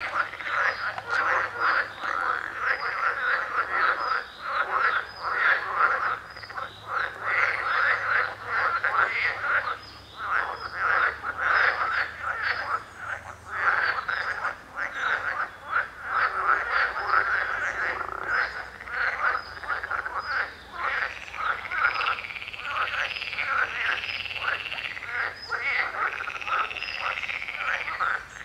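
A chorus of many frogs croaking continuously in rapid, overlapping pulsed calls, with a higher trill joining in during the last third.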